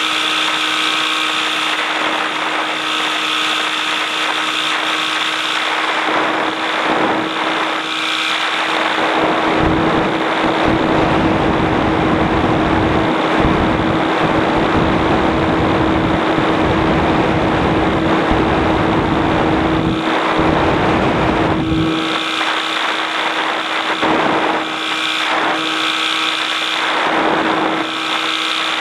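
Light aircraft's engine and propeller droning at a steady pitch in flight. A heavy low rumble, like wind buffeting the microphone, joins in from about nine seconds in until about twenty-two seconds in.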